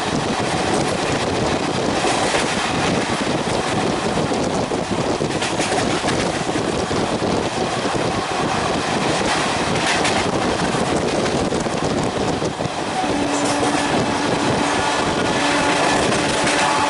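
Express passenger train running through at speed: a steady rushing roar of the coaches on the track, with wind buffeting the microphone. About 13 seconds in, faint steady tones join the roar.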